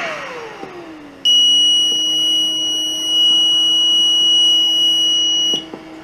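An electronic alarm buzzer sounds one steady high-pitched tone for about four seconds, starting about a second in and cutting off near the end. Beneath it, the ventilator's blower hum falls in pitch at the start and settles to a steady low hum.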